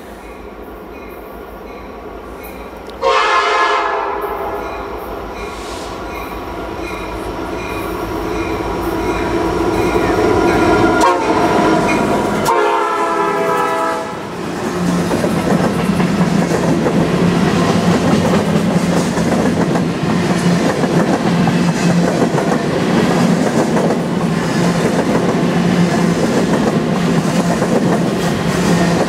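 CN freight train led by SD70I 5625 and C40-8M 2418 sounding its air horn as it approaches: a long blast that starts suddenly and fades away, then a second shorter blast. The locomotives then pass close by, and a long string of covered hopper cars rolls past with steady wheel clatter on the rails.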